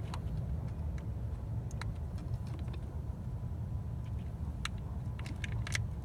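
A few small sharp clicks and rattles of a test probe and wiring being handled at a cam sensor connector, over a steady low hum.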